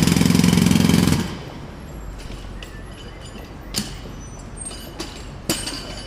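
Jackhammer hammering in rapid strokes, stopping about a second in, followed by quieter background noise with a few sharp knocks.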